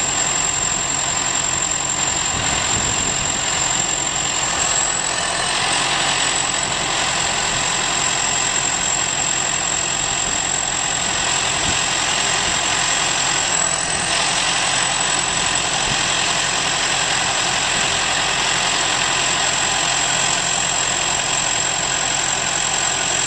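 Farm machinery engine running steadily under a constant high whine that lifts slightly twice.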